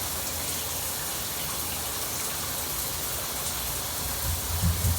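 Rain shower head running, water falling steadily in a shower, with a few low bumps near the end.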